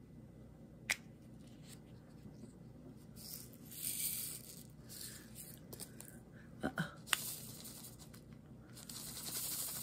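Tiny plastic diamond-painting drills poured from a small container into a plastic sorting tray, a rattling hiss heard about four seconds in and again near the end. A sharp click about a second in and a few more clicks midway, from the small plastic containers being handled.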